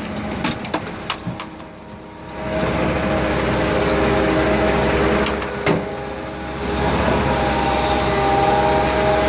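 Heavy diesel machinery on a concrete pour, with a few sharp knocks in the first second or so. The engine comes up about two seconds in and runs steadily with a whine, dropping off briefly a little past halfway, then picking back up.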